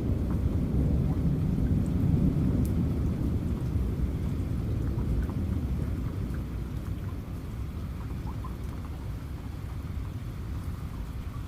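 Steady rain falling, with a long low rumble of thunder that is loudest in the first few seconds and slowly dies away.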